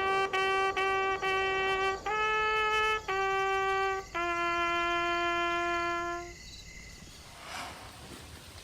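Intro music: a lone reedy, wind-instrument-like melody of short repeated notes that steps up and then settles on one long low note, which ends about six seconds in. After it, only a faint steady hiss remains.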